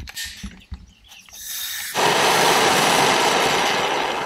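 A few clicks and knocks, then gas hissing from a large handheld gas torch, which lights about two seconds in and burns with a loud, steady flame noise.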